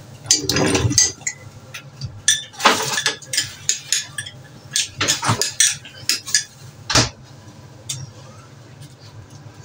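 Kitchen dishes, glassware and cutlery clinking and knocking together as they are handled: irregular sharp clinks, busiest in the first few seconds, with a few louder knocks later, over a low steady hum.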